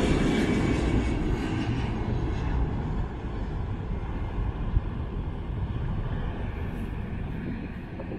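Jet airliner just after takeoff, its engine rumble steadily fading as it climbs away.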